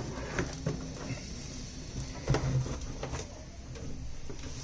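Cardboard carton handled as a sheet-metal battery charger is pulled out of it: rustling and scraping of the box flaps, with a few light knocks at irregular times.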